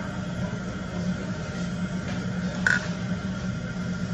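Steady low mechanical hum of the room, with a single short clink of a utensil against a dish about two and a half seconds in.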